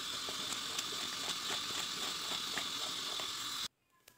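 Rice flour batter cooking in sugar syrup in a metal kadhai, with a steady sizzling hiss, while a metal spatula stirs it and clicks against the pan about four times a second. The sound cuts off suddenly near the end.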